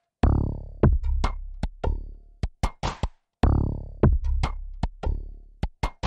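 Electronic music played on a Yamaha Tenori-on with a Korg Volca Drum and Roland JD-08: an uneven run of short, sharp drum-machine clicks and noise bursts, with low pitched drum hits that ring on for about a second, twice.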